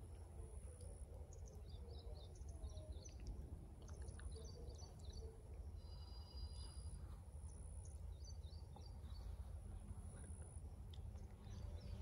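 Faint background of a low steady rumble, with small birds chirping in short runs several times.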